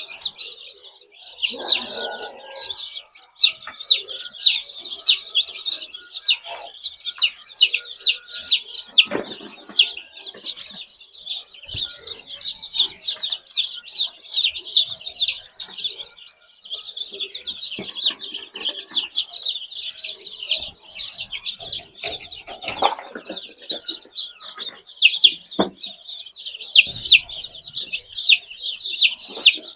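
A crowd of young chicks peeping nonstop, many short high cheeps overlapping, with a few faint knocks now and then.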